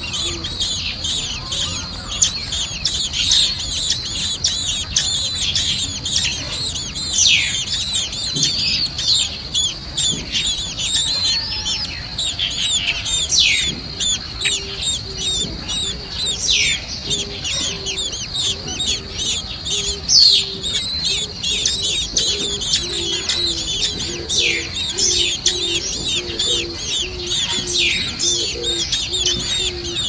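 Blackbird nestlings begging: rapid, high-pitched chirping without pause, with a few louder calls that slide downward. A steady high whine lies beneath, and a low hoot repeats about twice a second through the second half.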